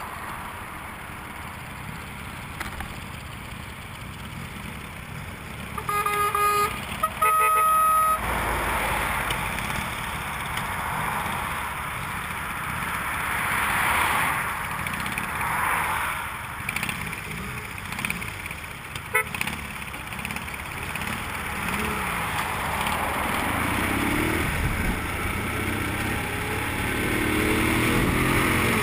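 Wind rushing over the microphone and a motorcycle engine running at road speed, with two short horn toots about six and seven seconds in. Near the end the engine's pitch rises as it speeds up.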